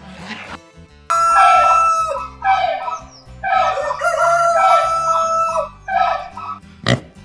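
Rooster crowing, cock-a-doodle-doo, in several loud drawn-out calls over faint background music. A short sharp click follows near the end.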